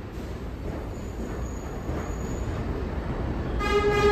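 R188 subway train rolling slowly past the platform, a steady wheel-and-rail rumble that grows louder. Near the end a horn sounds one steady note lasting about a second.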